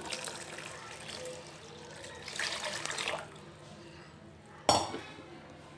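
Cornflour-and-water mixture being poured into hot sugar syrup in a pan, a liquid pour that is loudest about two to three seconds in. Near the end there is one sharp knock against the pan.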